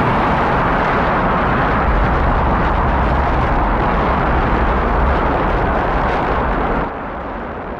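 Rocket engines firing: a loud, steady rush of noise over a deep rumble, dropping off sharply near the end.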